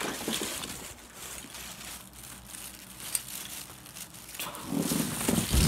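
Rustling and crinkling handling noise as the phone is moved and repositioned, with scattered knocks that grow louder near the end.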